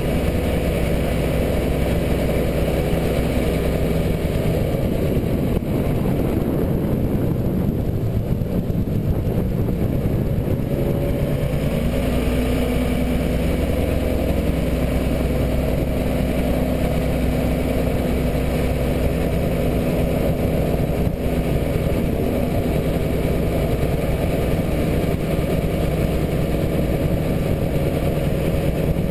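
Prodrive surface-drive outboard motor running steadily, pushing the boat along at cruising speed. The engine note shifts to a new steady pitch about twelve seconds in.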